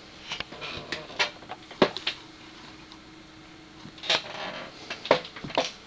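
A cat shifting about inside a cardboard storage-box cubby, making scattered light taps, knocks and scrapes on the cardboard, some in quick pairs, with a few sharper knocks among them.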